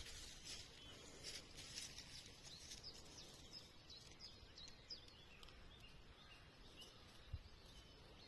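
Faint bird calls: short, high chirps repeated about once a second, over a faint low rumble, with a few brief rustles in the first couple of seconds.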